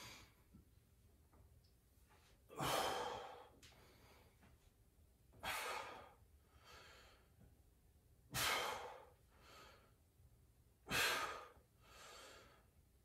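A man breathing hard from exertion during crunches: four strong exhales about three seconds apart, each followed by a softer inhale.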